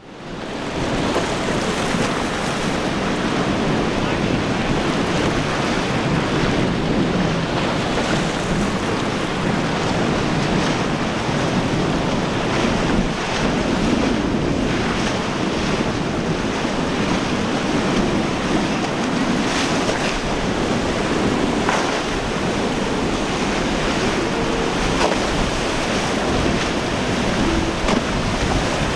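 Rough surf and waves churning through an inlet, with wind buffeting the microphone and the outboard motors of passing boats running under the water noise. The sound fades in over the first second, then holds steady.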